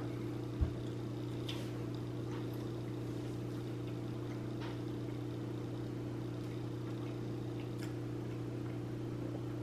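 A steady low hum in the room, with a soft thump about half a second in and a few faint light clicks of cutlery on a plate.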